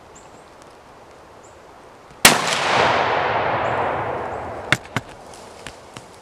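A single hunting gunshot, sharp and loud, followed by a long noisy tail that fades out over about two seconds. A little later come two sharp clicks.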